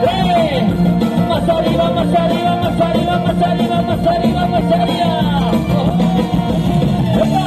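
Live band music played loud through a PA system, with a lead melody of long held notes and notes that swoop up and down.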